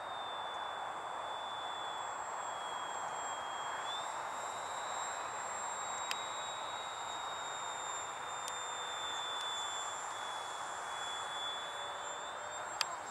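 Radio-controlled model airplane flying overhead: a steady high-pitched whine with a fainter tone above it, wavering slightly in pitch, over an even hiss. A few sharp clicks, one about six seconds in and two near the end.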